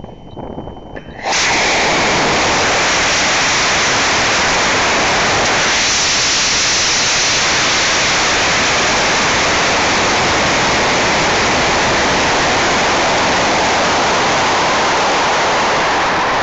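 High-power model rocket motor lighting about a second in, then a loud, steady roaring rush of thrust and air, heard from a camera riding on the climbing rocket.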